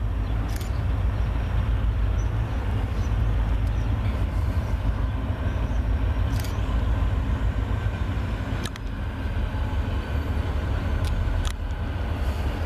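EMD diesel locomotives led by a GP35 approaching on a freight train, their engines running with a deep, steady rumble. A few sharp clicks stand out above it, about half a second, six, eight and a half, and eleven and a half seconds in.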